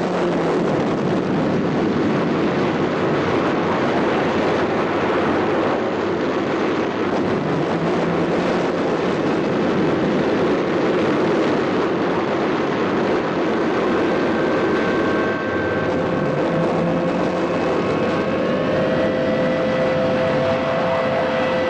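1966 Batmobile turbine sound effect: a loud, continuous rushing thrust with a whine, used for a spacecraft crash. About two-thirds of the way in, the steady tones of the Jupiter 2 engine sound effect join underneath, and some of these glide upward and level off near the end.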